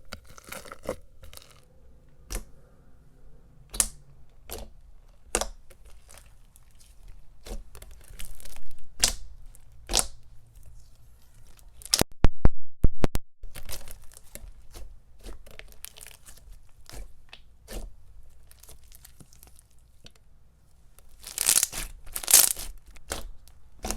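Thick, glossy, bubbly glue-based slime with foam balls being squished and stretched by hand, giving scattered sticky pops and crackles, with a quick run of sharp snaps about halfway and a louder crackly stretch near the end.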